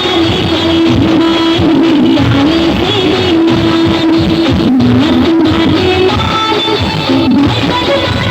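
Music with guitar and a melody line that moves between a few long held notes.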